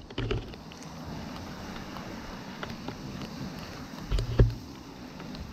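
A tree climber handling rope and gear aloft: scattered small clicks and rustles, with two dull thumps, one just after the start and a louder one about four seconds in.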